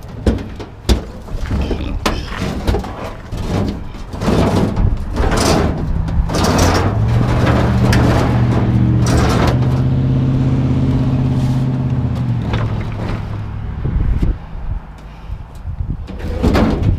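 Knocks, clanks and scrapes of scrap being handled and dragged, with a low steady engine hum from a vehicle in the middle stretch.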